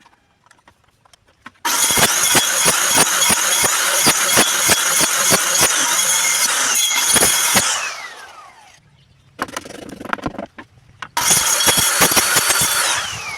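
Electric woodworking power tool run twice, its motor whining steadily with regular knocks about three a second, the first run long and the second short. After each switch-off the whine falls in pitch as the motor winds down, with scattered lighter clicks of handling between the runs.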